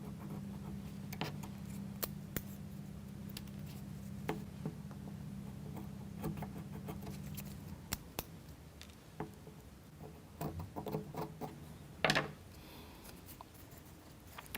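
Faint scattered clicks and snips of protruding wooden toothpick ends being cut off a plywood model part, with a low steady hum through the first half and a louder knock about twelve seconds in.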